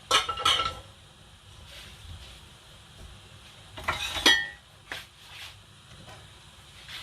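Kitchen dishes and utensils clattering and clinking: a cluster of knocks right at the start, another louder cluster about four seconds in, and a few lighter clinks after it.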